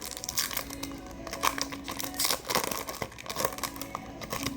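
Plastic trading-card pack wrappers crinkling and being torn open, with irregular sharp crackles.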